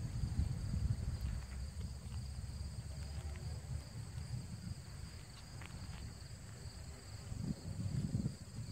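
Uneven low rumble of wind buffeting the microphone, easing in the middle and swelling again near the end, over a steady high-pitched drone of insects.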